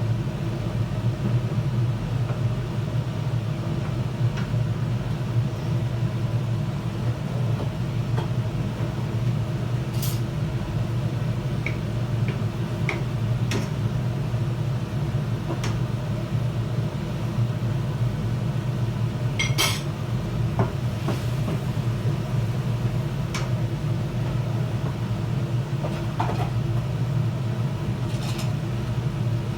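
Stovetop cooking: a steady low hum under a few sharp clinks of a metal utensil against the cooking pan.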